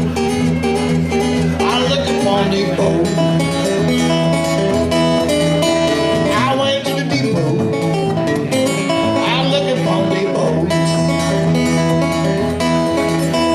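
Acoustic guitar playing a country blues tune, with picked notes over a steady low bass line.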